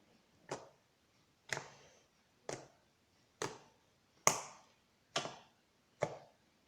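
Sticky homemade slime being pressed and pulled by hand, giving a sharp sticky pop or snap about once a second, seven in all, each trailing off briefly; the loudest comes a little past the middle.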